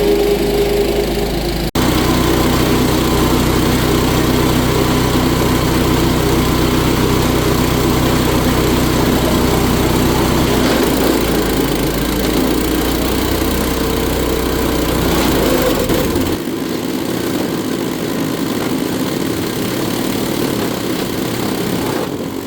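Belt-driven wood chipper's small gasoline engine running steadily. There is a brief dropout just under two seconds in, the sound changes character around ten seconds in, and the deep low hum drops away at about sixteen seconds.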